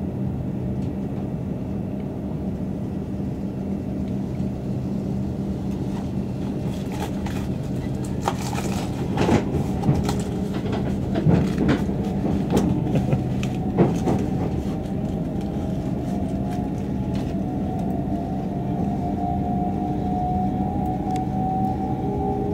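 Steady hum of a Southeastern Class 395 Javelin electric multiple unit standing at a station, heard from inside the carriage. A scatter of clicks and knocks comes through the middle, and a faint whine rises slowly in pitch over the last few seconds.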